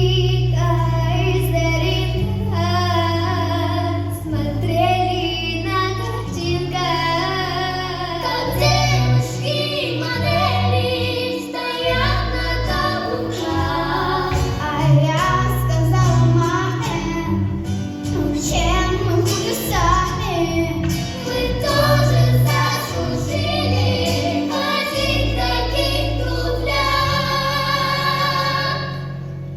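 A song with children's voices singing over a backing track with sustained bass notes.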